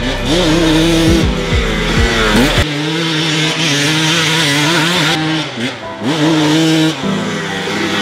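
KTM 300 XC's single-cylinder two-stroke engine revving up and down as the dirt bike is ridden hard, its pitch rising and falling with the throttle.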